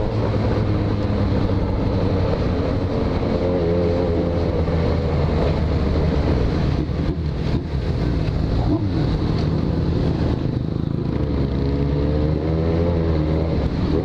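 Yamaha XJ6's inline-four motorcycle engine running on the move, its pitch rising and falling with the throttle, with wind rushing over the microphone.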